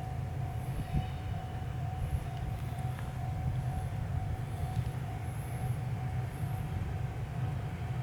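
Container freight train hauled by an EF510 electric locomotive rolling past while pulling away from the station, a steady low rumble of wheels on rails, with a steady mid-pitched tone running through it.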